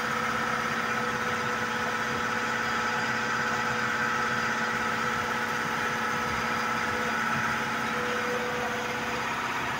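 7.5 HP high-pressure air compressor running steadily, an even mechanical hum with a constant whine.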